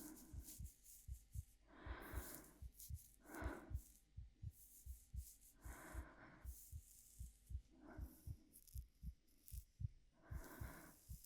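A soft, close-miked ASMR heartbeat: a steady run of low double thumps, a little faster than one pair a second. Over it run slow, soft breaths, about one every two seconds.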